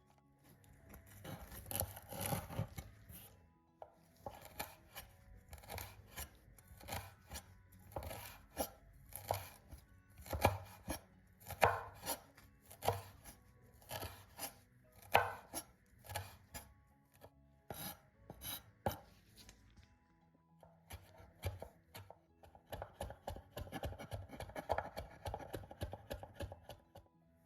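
Knife chopping on a cutting board in irregular strokes, one or two a second, with a run of quicker, lighter cuts near the end.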